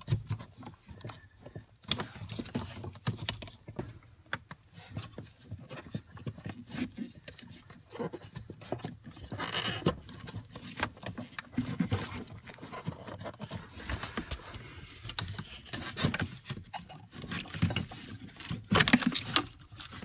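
Handling noise from unplugging wiring connectors and working a plastic interior fuse panel loose under a truck's dashboard: irregular plastic clicks, knocks and rustling, with a louder cluster of knocks near the end.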